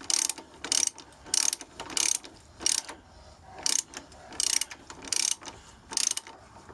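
Socket ratchet wrench clicking in short bursts, about one every two-thirds of a second with a brief pause about three seconds in: the back-and-forth strokes of running a bolt in by hand.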